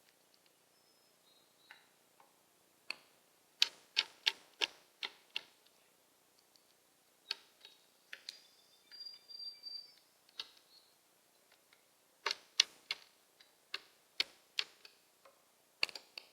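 A starling making a run of sharp, irregular clicks in quick clusters, with a few faint, thin, high whistles in between.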